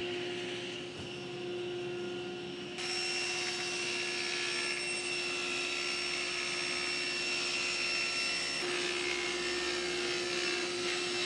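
Table saw running and ripping a sheet of 5/8 inch birch plywood: a steady machine whine that grows louder and hissier about three seconds in.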